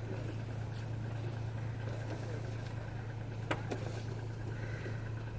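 Car running with a steady low engine hum, and two short sharp clicks about three and a half seconds in.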